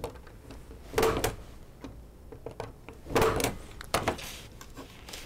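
Plastic clacks and handling sounds as twisted-pair wires are pressed into the teeth of a 110 punch-down block: two short clacks about two seconds apart, then a sharper click about four seconds in.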